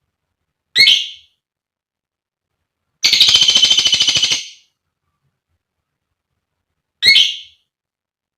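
Female lovebird calling: a short shrill chirp about a second in, then a rapid rattling trill lasting about a second and a half, then another short shrill chirp near the end.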